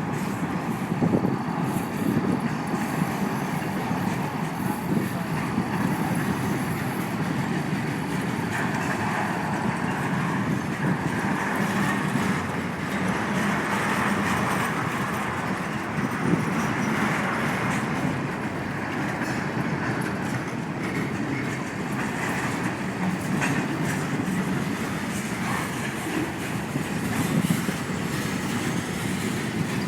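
Freight cars of a long KCS manifest train rolling past, with steady wheel-on-rail noise. A faint, thin, high squeal runs through the first ten seconds or so.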